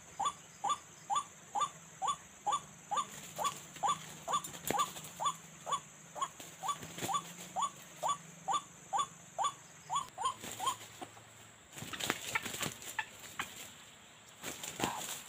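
White-breasted waterhen call: a short falling 'kruak' note repeated steadily about twice a second, stopping about 11 seconds in. After it, dry leaves and twigs crackle and rustle underfoot as a person walks in through the leaf litter.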